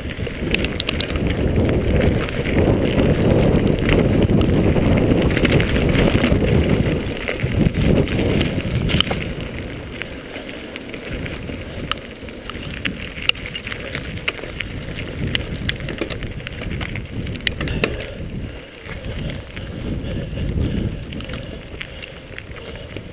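Mountain bike riding fast down a dirt trail: wind buffeting the microphone over the rumble of tyres on the ground, with scattered clicks and rattles from the bike. It is loudest for the first eight seconds or so, then eases off.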